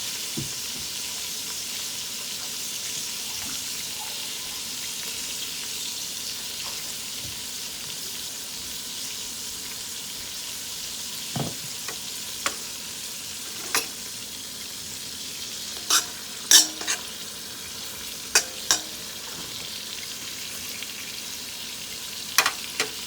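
Salt pork sizzling steadily as it fries in olive oil in a pot. In the second half, a handful of sharp clicks of a utensil against the pot break through the sizzle.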